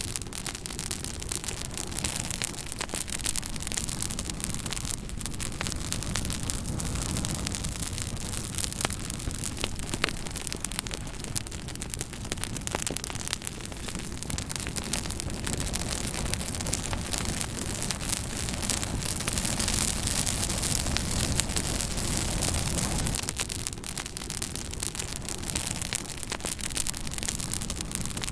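Fire crackling: a steady hissing rush with frequent sharp pops and snaps scattered irregularly throughout.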